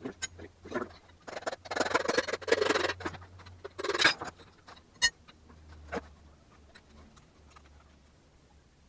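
Metal tools and engine parts clinking, knocking and scraping: a rattly stretch in the first few seconds, then a few separate sharp clinks that die away after about six seconds.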